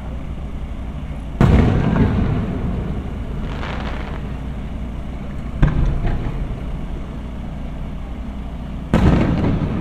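Aerial firework shells bursting: three sharp booms, about a second and a half in, about five and a half seconds in, and near the end, each trailing off in echo. The first is the loudest.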